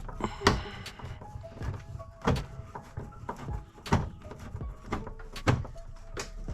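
Sharp knocks and clicks of hands and a tool working at a car's interior door panel and its trim, while the panel is being unfastened. The loudest knocks come a few times, about a second and a half apart, with music playing faintly behind.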